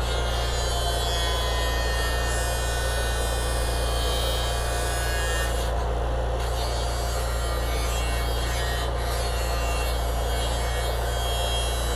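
Gate repair with an engine-driven mobile welder: the welder's engine runs with a steady hum under the crackling hiss of arc welding. The crackle breaks off briefly about six seconds in, then resumes.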